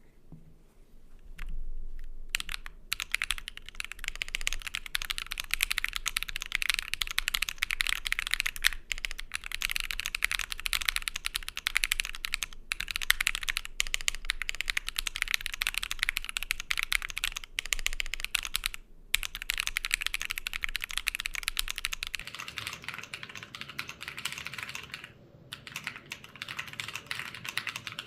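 Fast, continuous typing on a Keychron Q10 Alice-layout mechanical keyboard with BSUN Cliff tactile switches on a POM plate and doubleshot ABS keycaps. A few single clicks come first, then dense typing starts about two and a half seconds in, with a few brief pauses.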